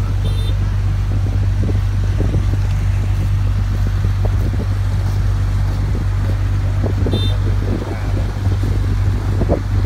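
Small river ferry's engine running with a steady low drone.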